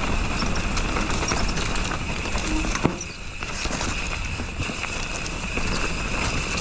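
Mountain bike riding over a dirt trail, heard from a camera on the bike: tyres rolling and the bike rattling over bumps, with wind rumbling on the microphone. A sharp knock comes a little under three seconds in.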